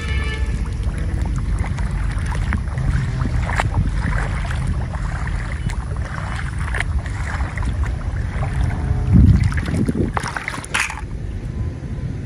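Wind buffeting the microphone: a steady low rumble, with a stronger gust about nine seconds in.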